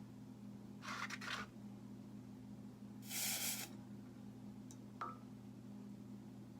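Freshly soldered, still-hot wire trivet being quenched in water, giving two short hisses, the second louder. A small sharp metallic click follows about five seconds in.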